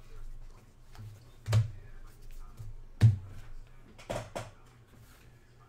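Cards and card-break items being put down on a tabletop. There are two sharp knocks about a second and a half apart, then a quick double tap, over a faint low hum.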